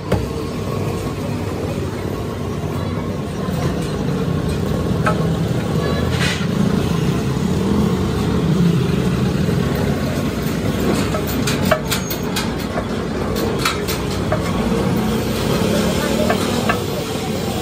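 Street background of traffic and men's voices, with a cluster of sharp clicks about two-thirds of the way through.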